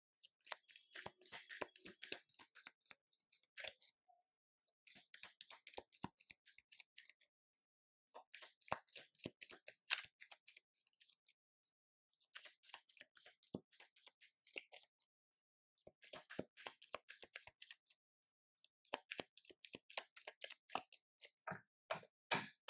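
A deck of tarot cards being shuffled by hand: runs of rapid, crisp card flicks a few seconds long, repeated about seven times with short pauses between.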